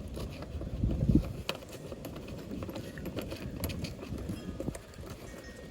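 Scattered light clicks and knocks of a tool and fasteners being worked loose on a car, with a louder bump about a second in, over a low rumble.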